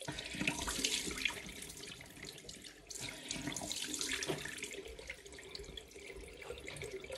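Bathroom tap running into a sink, the water splashing unevenly, heavier in the first second and a half and again from about three to four and a half seconds in. A faint steady hum sits underneath.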